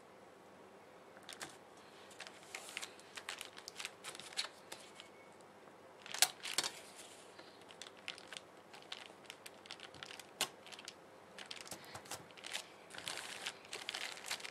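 Washi tape being handled and pressed onto paper planner pages: scattered crinkling, rustling and small clicks, with one louder crackle about six seconds in.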